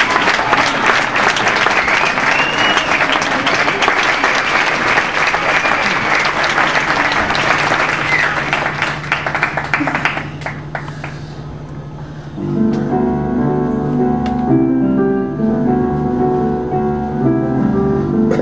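An audience applauds for about ten seconds, and the clapping fades away. A couple of seconds later, a piano starts playing the introduction to the next song.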